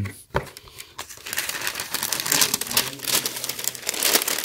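White tissue paper crinkling as hands fold it back inside a cardboard shoebox, a run of dense crackles. A single knock about half a second in.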